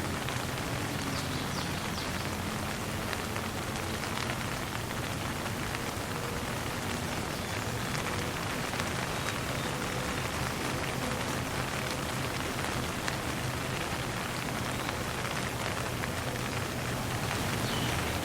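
Steady light rain pattering on a surface, with fine drips and a low, even rumble beneath.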